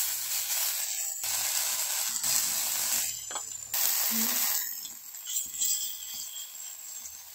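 Small patties of ground thankuni-leaf batter sizzling in hot mustard oil on a tawa. The hiss surges each time a fresh patty goes into the oil, about four times, then settles lower for the rest.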